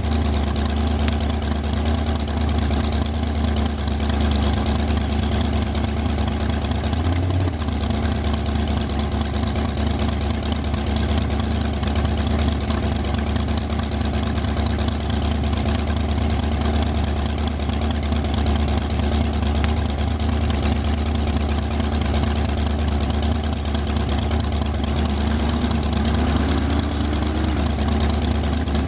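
Dragster engine idling steadily, heard from the on-board camera in the cockpit, its pitch rising briefly about seven seconds in and again, more slowly, near the end.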